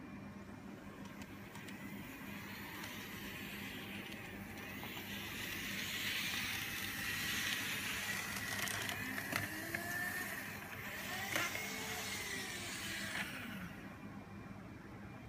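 Kato N scale model train running on track: a small electric motor whine with wheels rattling and clicking over rail joints and turnouts. It grows louder as the train comes close, with a few sharp clicks, then fades near the end.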